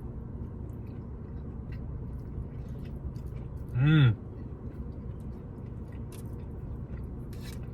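A man chewing a bite of jalapeño cheddar sausage, with faint mouth clicks, and one short hummed sound of approval that rises and falls about four seconds in. A steady low hum runs underneath.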